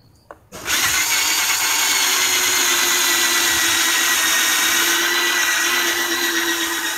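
Electric drill spinning a foam polishing pad against a plastic headlight lens, buffing it with liquid compound. It starts suddenly about half a second in and then runs steadily with a whine.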